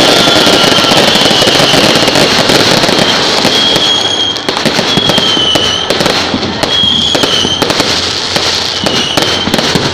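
Fireworks display: a dense, loud, continuous crackling and popping of many shells and bursts going off together, with a thin high whistle coming and going in the second half.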